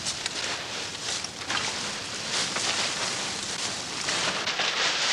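Dry leaves rustling and crackling as they are heaped onto a stacked-wood charcoal pit to cover it, growing louder toward the end.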